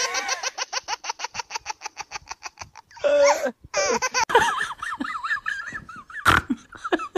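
A young woman laughing: a long run of quick, even pulses that fades over about three seconds, then a short loud burst and more broken laughter.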